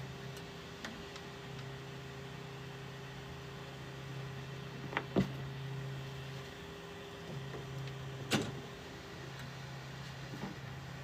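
A steady low electrical or motor hum that drops out for about a second in the middle and then returns, with a few sharp clicks and knocks, loudest about five and eight seconds in.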